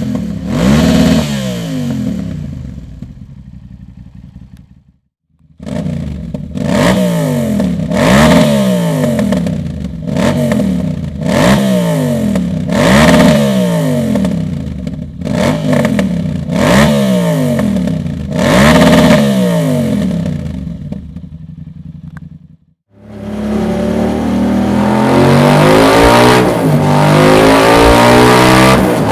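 Yamaha TDM 850 parallel-twin engine through a Dominator aftermarket exhaust silencer, revved in a series of short throttle blips, each rising and dropping back, about every two seconds. After a brief break near the end it climbs in one long, steady rise through the revs.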